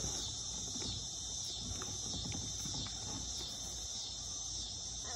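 Steady high-pitched drone of insects calling, with a few faint small knocks.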